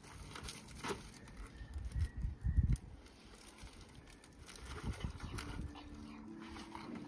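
A puppy making small sounds, with a few dull low thumps about two to three seconds in.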